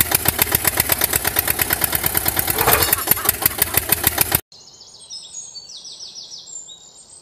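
Tractor engine sound, an even chugging of about nine beats a second, that cuts off suddenly a little over four seconds in. After that, faint high bird chirps.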